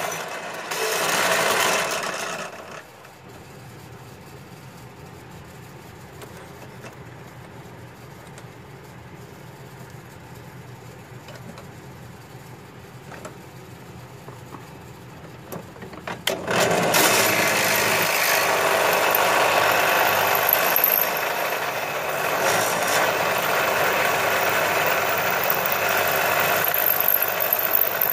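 Drill press boring into a solid copper bar. The bit cuts noisily for a couple of seconds, then the motor runs on with a quieter steady hum while the bit is lifted clear. Cutting starts again about sixteen seconds in and keeps on steadily.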